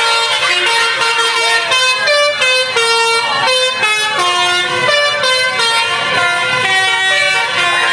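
Tour bus's telolet horn, a multi-trumpet 'basuri' air horn, playing a quick melody of short stepped notes, several pitches sounding together.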